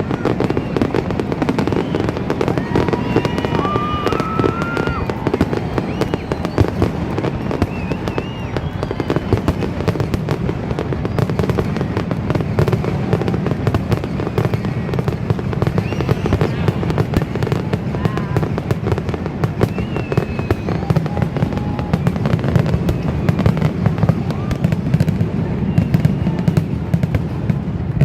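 Fireworks display: a continuous barrage of rapid bangs and crackling, with no pause.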